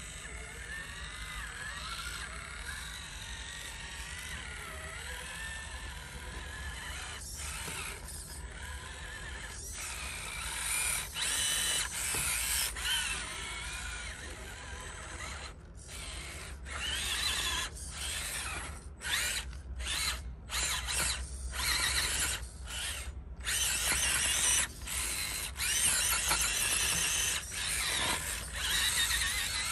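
Losi Night Crawler SE 1/10-scale RC rock crawler's electric motor and geartrain whining under load as it climbs over bricks. A wavering whine at first, then from about a third of the way in, louder stop-start bursts with short pauses between throttle pulls.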